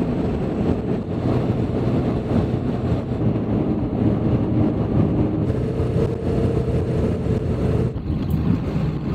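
Diesel pickup truck (the 1996 Ford F350 7.3 Powerstroke) driving at highway speed: a steady drone of engine, tyres and wind. The sound changes abruptly about five and a half and again about eight seconds in.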